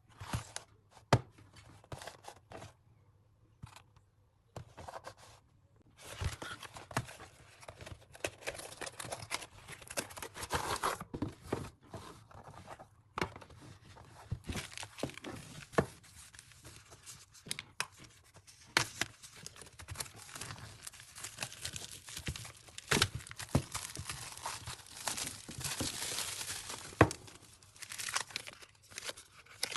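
A paint-by-numbers kit being unpacked and handled: plastic packaging crinkling and tearing, with many sharp clicks and taps as the pieces are picked up and set down.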